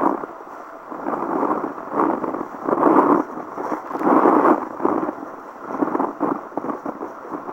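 Wind buffeting the microphone of a kitesurfer's camera in strong wind of about 25 knots, swelling and fading every second or two, mixed with the crackle of water spray and the board chattering over choppy water.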